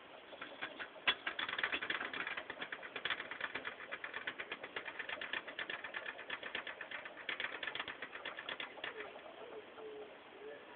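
A gerbil scrabbling in its cage bedding makes a rapid run of small dry clicks and scratches, several a second, that stops about nine seconds in. Faint cooing follows near the end.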